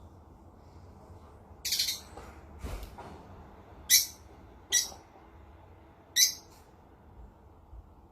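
A parrot giving about five short, high-pitched calls at irregular intervals; the first, under two seconds in, is a little longer than the rest.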